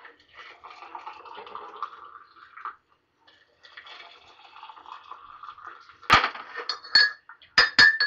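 Several sharp clinks of glass or crockery from about six seconds in, a few close together near the end, over a faint, uneven background murmur.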